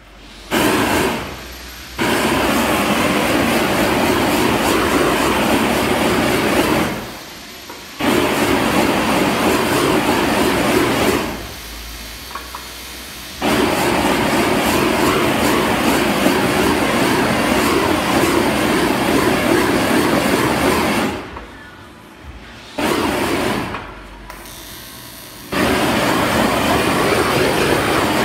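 Handheld gas torch flame blowing with a steady rushing hiss. It cuts off and starts again abruptly several times.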